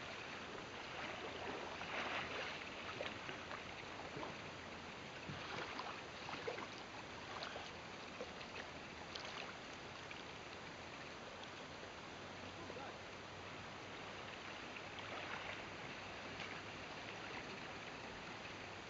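River water flowing, a steady even rush from the current running over the shallows.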